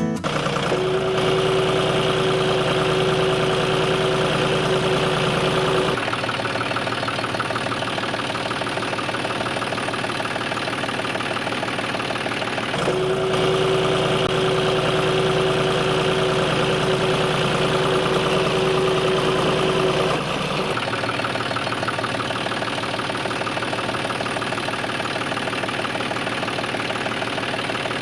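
A motor running steadily, in a repeated engine-like rhythm, with a steady whine in two stretches, near the start and again midway, that stops abruptly each time.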